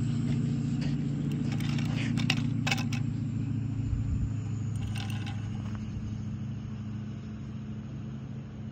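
An engine runs with a steady low drone that slowly fades, and a few light clicks come between one and a half and three seconds in.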